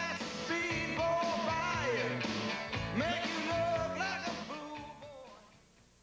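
Rock-and-roll song with singing over a band, fading out over the last second or so.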